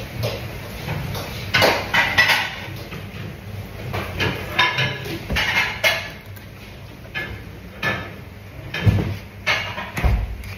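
Kitchen clatter: irregular knocks and clinks of dishes, containers and utensils being handled and set down, a sharp one every second or two.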